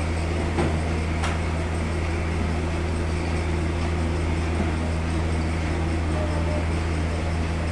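Steady low hum of running machinery, even in level throughout.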